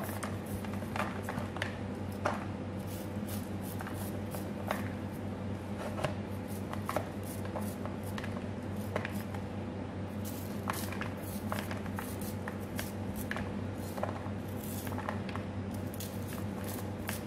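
Knife cutting sweet corn kernels off a raw cob, with the kernels dropping into a plastic bowl: irregular short cutting strokes over a steady low hum.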